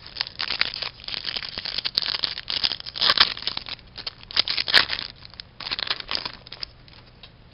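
A hockey card pack's wrapper crinkling and tearing as it is opened by hand, in a run of dense crackles that stops about six and a half seconds in.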